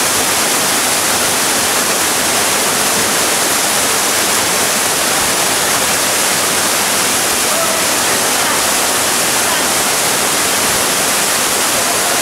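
Waterfall cascading down a rock face: a loud, steady rush of falling water.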